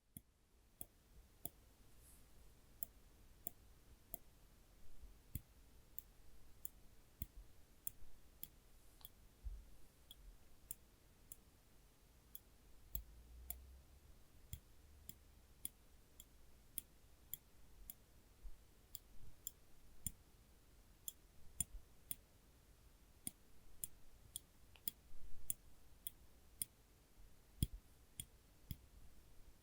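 Tweezers clicking as their tips are pressed together and released: an irregular run of sharp, brief clicks, about one or two a second.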